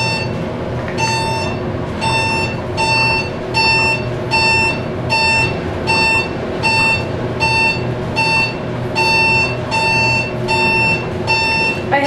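An electronic beeper sounding an even run of short, high beeps, nearly two a second, over the low hum of a Montgomery elevator car travelling upward.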